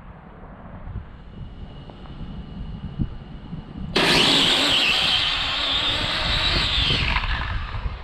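Electric RC drag car's brushless motor on a 6S LiPo making a full-throttle test pass: a faint steady whine, then about four seconds in a sudden loud high-pitched whine that holds for about three seconds and fades as the car runs off down the strip.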